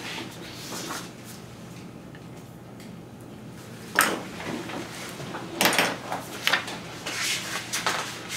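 Quiet office room tone with a low hum, then a sharp knock about four seconds in and a run of rustling and small clattering near the end as paper citation forms are handled and signed at a desk.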